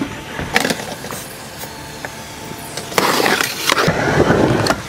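Skateboard on a wooden mini ramp: a sharp knock about half a second in, then from about three seconds in the loud rolling noise of the wheels on the plywood as the skater drops in and rides across the ramp.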